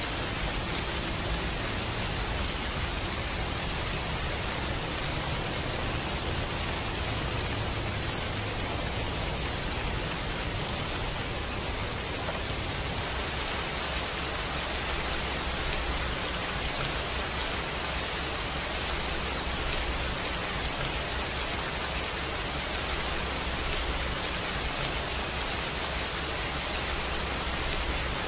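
Steady recorded rain: an even, unbroken hiss with a low rumble underneath. It serves as the masking track of a subliminal recording.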